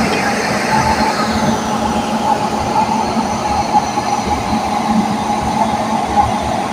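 Indian Railways electric locomotive running close by: a steady hum with a constant whine over an uneven low rumble.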